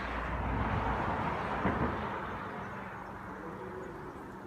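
A vehicle passing, its noise swelling and then fading away, with a single sharp knock about a second and a half in.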